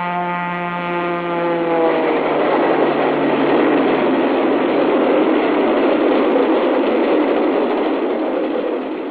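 Train horn sounding a chord, dipping slightly in pitch as it cuts off about two seconds in, then the loud, steady rumble of the train passing, fading near the end.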